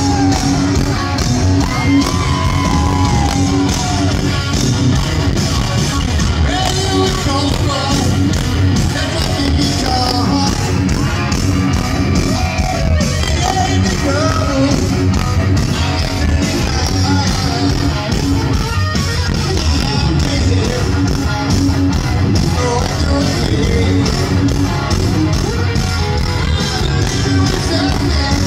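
A rock band playing live through a loud outdoor festival sound system: distorted electric guitar, drums and sung vocals, with fans yelling close by.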